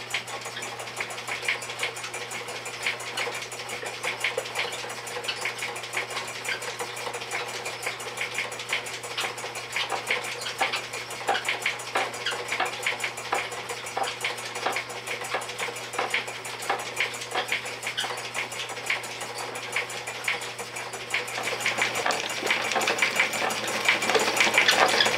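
Homemade pad dye machine running: its gears and rollers clatter with fast, uneven clicking over a steady low hum, growing louder near the end.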